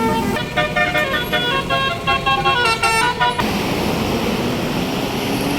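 Tour bus's 'telolet basuri' multi-tone musical air horn playing a quick tune of short notes that step up and down in pitch. It cuts off suddenly about three and a half seconds in, giving way to a steady noisy rumble.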